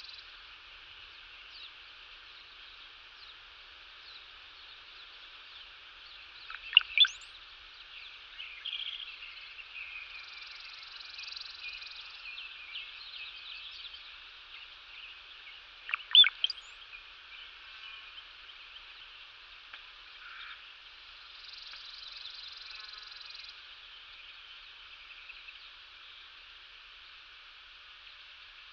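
Outdoor nature ambience: a steady high-pitched chorus of small animal calls, with a few loud, sharp sweeping chirps standing out, a pair about 7 seconds in and another about 16 seconds in.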